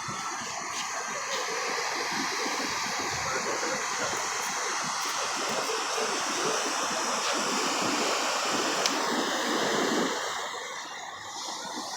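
Surf washing on the beach: a steady rush of breaking and running water that eases off about ten seconds in.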